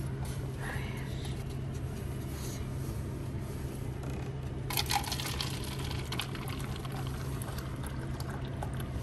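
Coffee pouring from a self-serve dispenser into a cup over a steady low hum, with a brief clatter about five seconds in.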